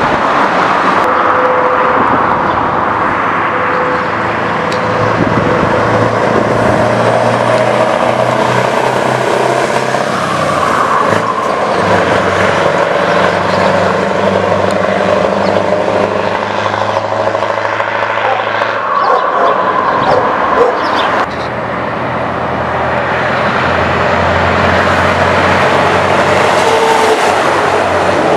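Scania 164 580's 16-litre V8 diesel, fitted with a Zotos straight-pipe exhaust, running loud under load as the truck pulls away. The engine note steps up and down between gears, with an abrupt change about two-thirds of the way through where one pass gives way to another.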